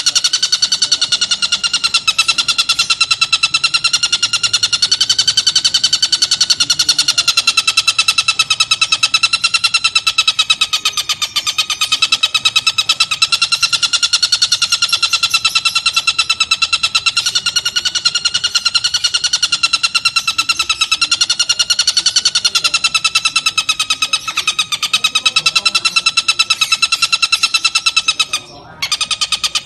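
Oriental dollarbird (tengkek buto) calling in a continuous fast, pulsed rattling chatter on one slightly wavering pitch, broken once briefly near the end.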